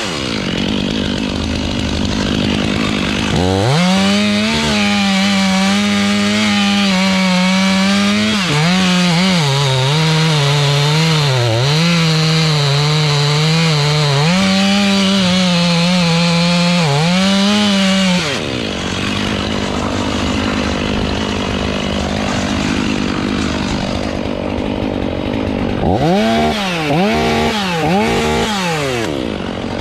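Two-stroke chainsaw running at full throttle and cutting wood, its pitch dipping again and again as the chain loads up in the cut. It eases to a lower, rougher note for several seconds, then revs and cuts again near the end.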